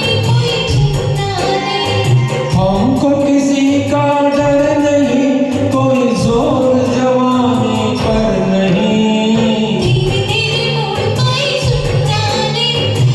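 Karaoke backing track playing the instrumental introduction of a Hindi film song: a held, wavering melody line over a steady percussion beat.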